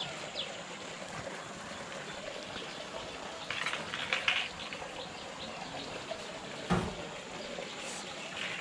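Water splashing and running off as a landing net holding a small fish is lifted out of a pond, then a single knock as the net is set down on the concrete bank, over a steady wash of water.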